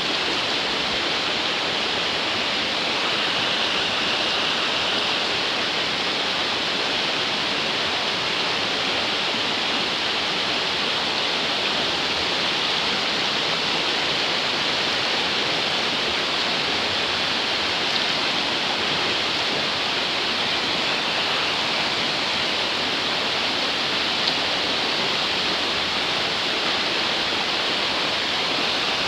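Fast-flowing river water rushing over rocks, a steady, even hiss of white water.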